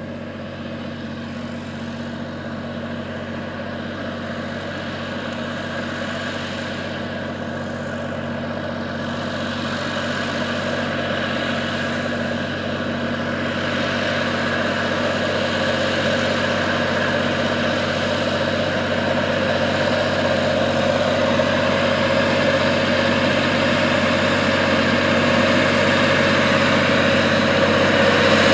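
Allis-Chalmers 8550's turbocharged 731 cubic inch diesel engine running steadily under load while pulling a disk through the field. It grows steadily louder as the tractor approaches.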